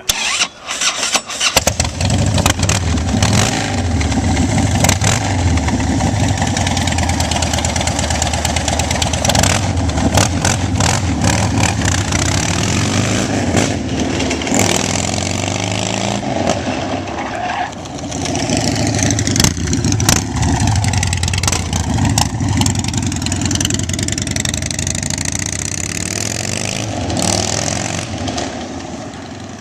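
A custom motorcycle engine is cranked on the starter and catches about a second and a half in. It then runs and is revved up and down several times, and is shut off near the end.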